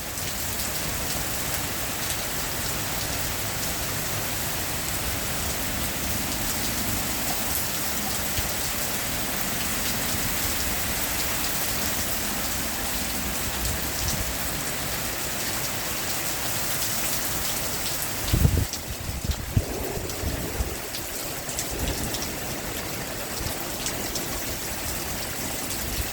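Heavy rain falling steadily in a downpour. About two-thirds of the way through, a brief low rumble rises above the rain, followed by a few weaker low rumbles.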